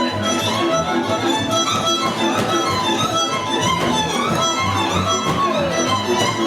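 Violin music with a pulsing bass accompaniment.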